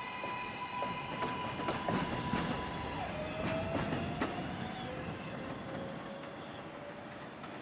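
R188 subway train running away along elevated track, its steel wheels clicking over rail joints between about one and four and a half seconds in. Over this runs the steady high whine of its electric propulsion, which drops in pitch about three seconds in and then slowly rises, all fading as the train draws off.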